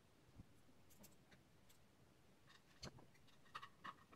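Near silence with a few faint clicks and taps, a couple near the start and several more near the end, as small screws and a PCB holder clip are handled and fitted onto a microscope stand's base plate.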